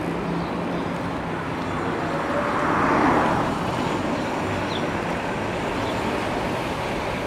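Steady rushing wind and road noise from riding an electric bike along a city street, with traffic sound around it. The noise swells briefly about three seconds in, then settles back.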